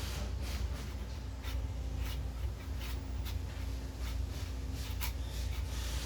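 Irregular short scraping and rubbing strokes, about two a second, over a steady low hum.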